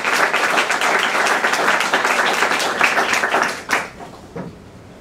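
Audience applauding, then dying away about three and a half seconds in.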